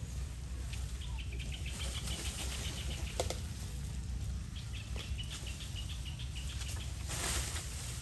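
A bird giving two runs of rapid, high chirps, each a second or two long, over a steady low rumble. A short rustle of leaves comes near the end, from monkeys climbing through the branches.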